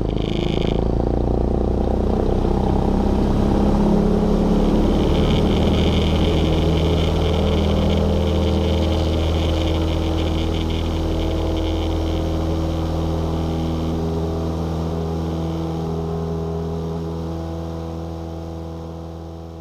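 Light aircraft's engine and propeller at full takeoff power, a steady drone during the takeoff run and climb-out. It fades out over the last several seconds.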